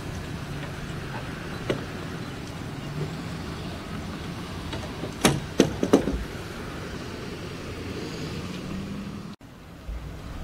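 Steady low engine hum, with three or four sharp knocks in quick succession about five to six seconds in.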